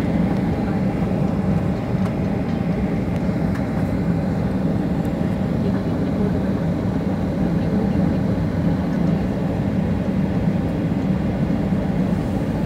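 Steady rumble of a jet airliner rolling along the runway, its engines running and wheels on the tarmac, heard from inside the cabin.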